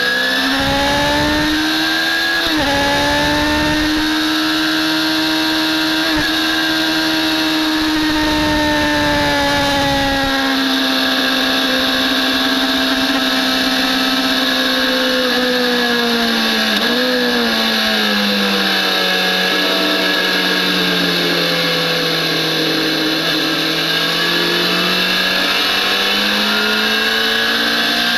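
BMW S1000RR sport bike's inline-four engine pulling hard on a track lap, heard from on board over a steady rush of wind. The pitch climbs, drops suddenly with an upshift about two and a half seconds in, then holds. It falls slowly over many seconds and rises again near the end.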